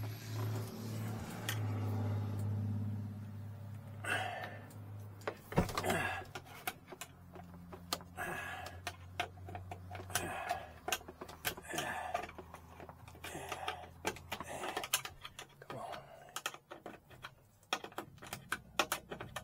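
Rapid small clicks and rustling of bundled wires and connectors being handled and twisted together, over a low steady hum that fades out about halfway through.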